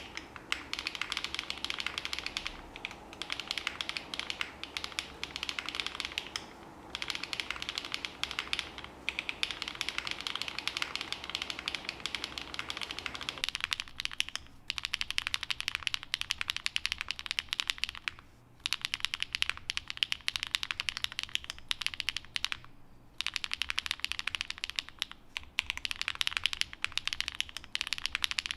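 Fast, continuous typing on a Qwertykeys NEO80 mechanical keyboard with HMX Sunset Gleam (Duck Duck) linear switches, a POM plate and GMK keycaps, with a few brief pauses. About halfway through, the recording changes from the camera's microphone, with more room sound under the keystrokes, to a cleaner, drier close recording.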